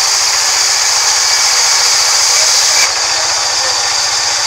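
Large vertical band sawmill ripping a rain tree log: a steady, loud high hiss from the blade cutting wood over the low hum of the running motor. About three seconds in the hiss suddenly thins and eases as the blade runs out of the end of the cut.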